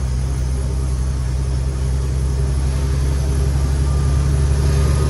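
Cummins X15 inline-six diesel of a loaded Kenworth T800 truck running steadily in gear, a low drone heard from inside the cab, growing slightly louder toward the end.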